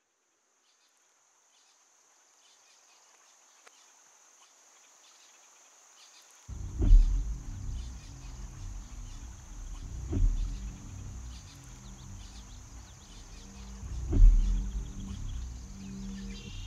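Scored soundtrack music: a faint, steady, high insect-like chirring, then about six and a half seconds in a deep bass score comes in with a heavy low boom three times, every three to four seconds.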